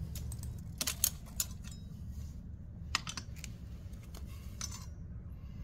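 Scattered, irregular light metal clicks and taps from a hand tool being fitted and worked on a bicycle's crank arm bolt, over a low steady hum.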